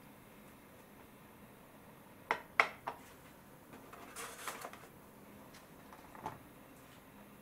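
A small glass dish set down on a countertop with three quick clinks, then a plastic clamshell produce pack crinkling as it is handled and lifted, and one more light tap near the end.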